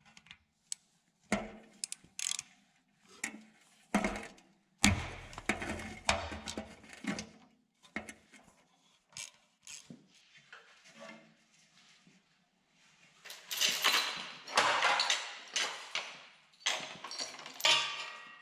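Ratchet wrench clicking as bolts are worked loose, with scattered metal knocks. Near the end comes a louder stretch of metal clanking and chain rattle as a lifting chain is wrapped around an engine.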